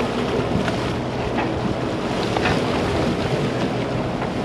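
A party boat's engine running steadily, with wind blowing on the microphone.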